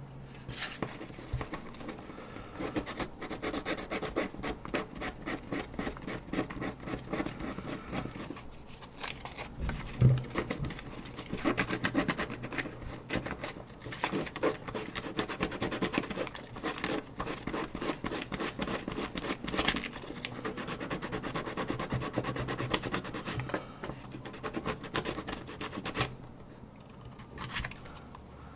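Sandpaper rubbing back and forth on a plastic keyboard keycap in rapid, steady strokes, grinding away the keycap's coating; the sanding stops near the end.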